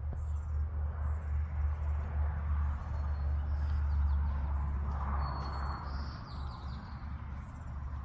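Small birds chirping now and then over a steady low rumble, with one brief high whistled note about five seconds in.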